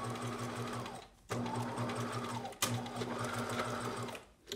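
Bernina electric sewing machine stitching a seam at a steady speed in short runs. It stops briefly about a second in, dips again just past halfway and restarts with a sharp click, then stops shortly before the end.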